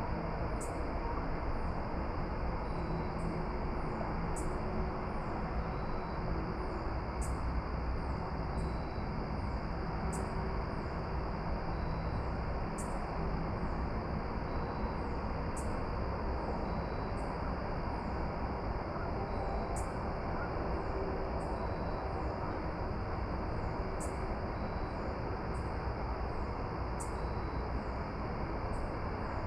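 Steady outdoor evening ambience: an even low rumble of noise, with short, very high chirps repeating about once a second over a faint steady high hiss.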